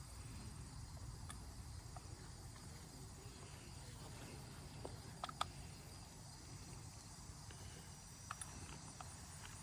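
Faint, steady insect chirping, like crickets, over a low rumble, with a few light clicks about five seconds in.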